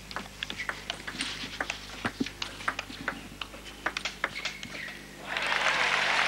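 Table tennis rally: the ball clicks in quick, irregular succession off the bats and table. About five seconds in, the point ends and the crowd bursts into applause.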